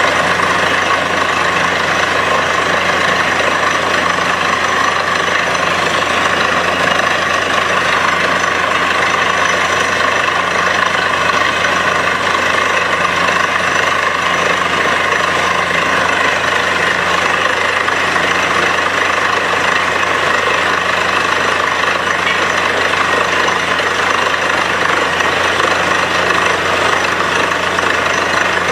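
Truck-mounted borewell drilling rig running steadily while it drills, its engine drone mixed with the rush of muddy slurry and cuttings blown out of the borehole.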